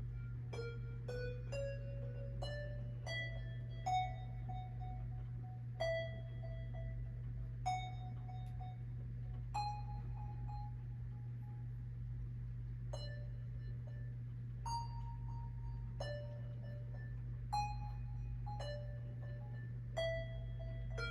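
A work-in-progress electronic track playing back from music software: a sparse melody of single notes, each struck and fading, over a steady low drone.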